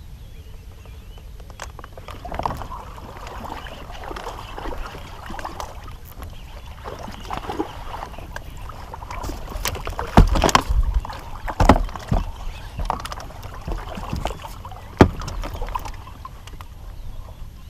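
Water splashing and knocking against a small fishing boat while a hooked bass is played in. There are several sharp knocks and splashes about ten and twelve seconds in, and another near fifteen seconds.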